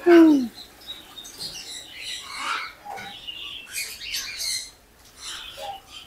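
Black swans calling: one loud call that falls in pitch at the start, then softer, scattered high chirping calls.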